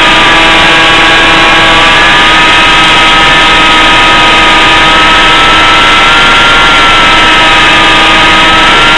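Electric motor and propeller of a BlitzRCWorks Sky Surfer RC plane whining steadily in flight, its pitch drifting slightly up and down, over a loud rushing noise.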